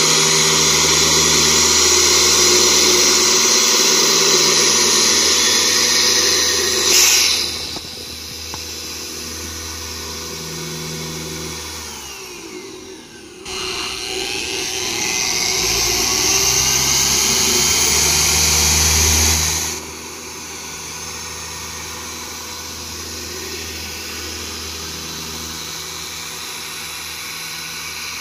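Electric car polisher running on painted bodywork, working an all-in-one polish in under light pressure. It drops in level about seven seconds in, winds down and spins back up around thirteen seconds, runs louder again, then settles lower and steadier from about twenty seconds.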